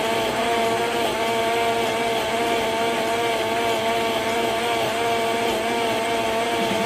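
Countertop blender running at a steady speed, blending a thick fruit-and-yogurt smoothie: an even motor whine over the churning of the mix.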